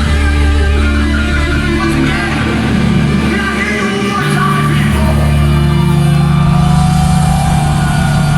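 Live heavy metal band playing loudly: electric guitars, bass and drums, with sung vocals.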